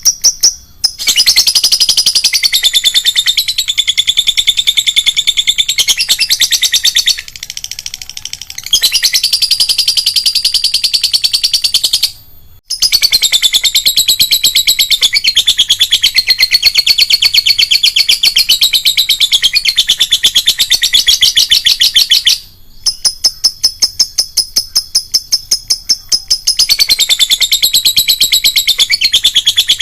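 Lovebird's long, rapid, shrill chattering trill ('ngekek'), many notes a second, in long bouts broken by short pauses.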